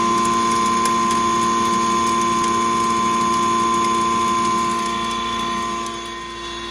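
Stoneless maize pulverizer mill with its blower running: a loud, steady machine whine with several held tones, with maize kernels feeding into the grinding chamber. There are occasional light ticks, and it drops a little in level near the end.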